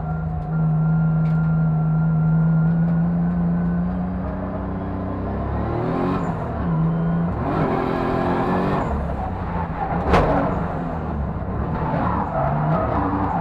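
BMW E36 drift car's engine held at high revs, heard from inside the cabin, then dropping and climbing again several times while the car slides with tyre squeal. A single sharp crack comes about ten seconds in.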